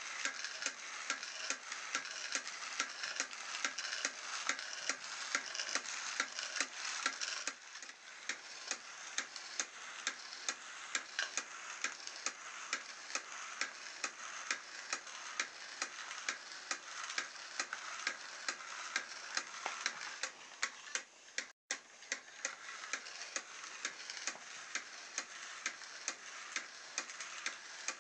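Home-made crawler robot built from an internal DVD drive mechanism, running: its small motor and gear train give a steady whirring hiss with regular sharp clicks, about two a second, as it crawls along.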